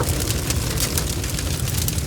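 Wood fire burning in a fireplace: a steady low rumble of flame with many quick, sharp crackles and pops from the burning logs.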